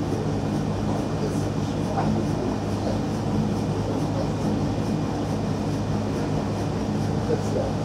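Steam launch SS St. Georg under way: a steady low hum from its machinery, with a faint quick regular beat above it. Faint voices murmur in the background.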